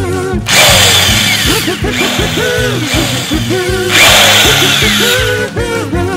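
Toy power drill whirring twice, each time for about a second and a half, over background music with a steady beat.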